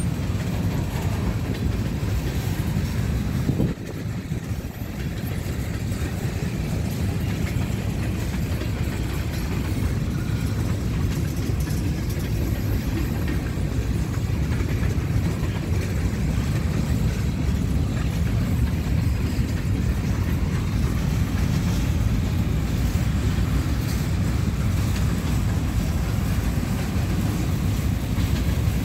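Freight train of covered hopper cars rolling past: a steady low rumble that dips briefly about four seconds in.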